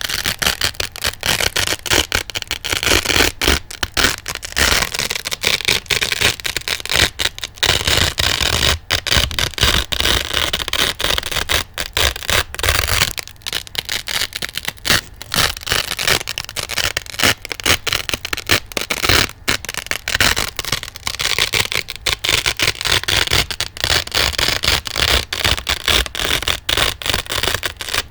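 Velcro hook-and-loop fastener ripped apart over and over close to the microphone: a continuous crisp, crackly tearing with many brief gaps.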